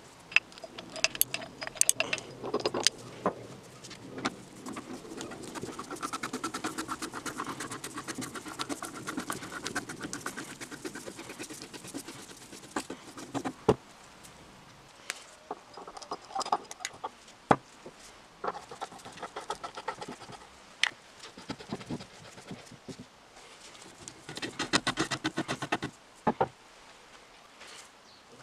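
Steel parts of a Millers Falls No. 118 breast drill clicking and rattling as they are handled and the chuck is threaded onto the spindle. There is a long run of rapid fine clicking in the middle and a shorter one near the end, with scattered sharp metal taps.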